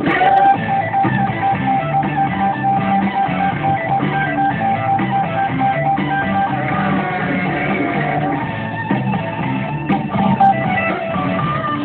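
Rock music with guitar, a long held note running through the first half or so.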